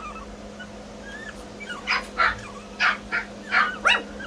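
Brussels griffon puppies whining thinly, then yipping: about six short, sharp yaps in quick succession from about two seconds in.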